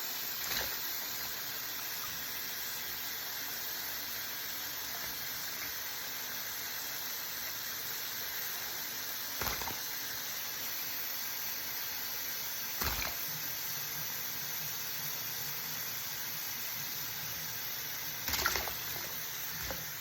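Warm water running steadily from a tap, with a few short knocks over the flow.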